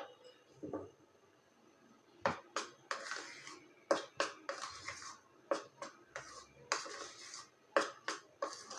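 A metal spoon scraping and clinking against a ceramic bowl as cocoa powder is stirred into cake batter. The clinks start about two seconds in and then come about every half second.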